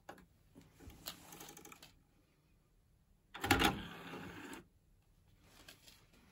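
Sony DVD/CD player's disc tray mechanism opening: a click of the open/close button, then whirring and clicking from the loading mechanism. The loudest part, about a second long, comes about three and a half seconds in as the motor drives the tray out.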